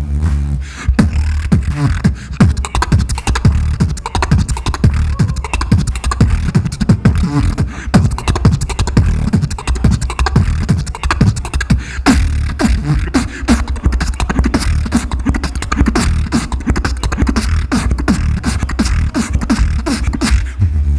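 Solo beatboxing into a handheld microphone: a fast, dense run of kick- and snare-like mouth sounds over a deep, nearly continuous vocal bass.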